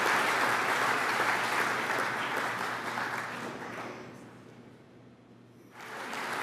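Audience applauding, a dense clapping that dies away about four seconds in; after a short quieter lull the clapping noise rises again near the end.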